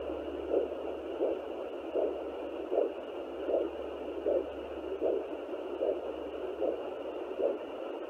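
Sonoline B 3 MHz pocket fetal Doppler's speaker playing the mother's own pulse as evenly spaced beats, about four every three seconds, over a steady static hiss. The probe is picking up her own artery, not the baby's heartbeat.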